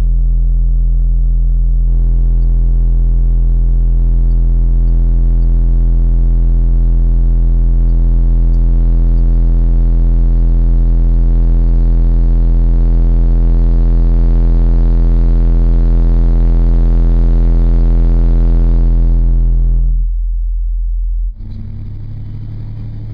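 Car audio subwoofer system, driven by two Sundown SAZ-2500 amplifiers, playing a loud, steady deep bass tone for the amplifiers' current draw to be measured. The tone cuts off about 20 seconds in.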